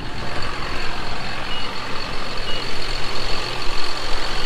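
John Deere 7730 tractor's six-cylinder diesel running steadily under a broad hiss. Two short high beeps sound about a second apart.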